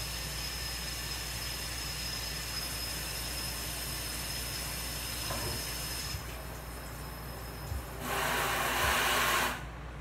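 Water running from a kitchen tap while dishes are washed in the sink: a steady rushing hiss that drops about six seconds in, then a louder gush near the end that stops suddenly.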